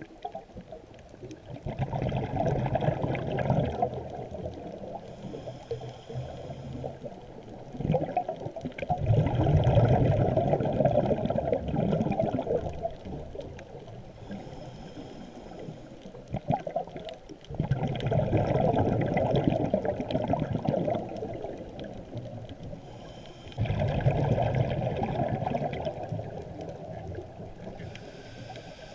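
A scuba diver breathing through a regulator underwater: a loud bubbling exhalation about every six seconds, four in all, with a faint hiss of inhalation in between.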